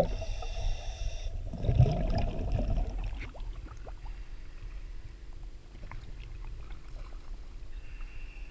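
Water sloshing and lapping around a camera at the waterline, loud and churning for the first three seconds, then gentler lapping with small scattered clicks and drips.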